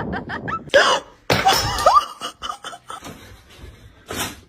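A person laughing in quick, repeated bursts, then two louder short cries about a second in.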